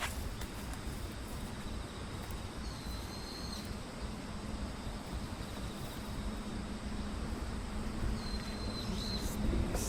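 Outdoor field ambience: a steady low rumble, with two short, high, thin trills about five seconds apart. A low steady hum builds up over the last few seconds.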